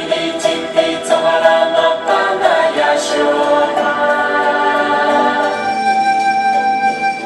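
Background music: a group of voices singing in long held notes.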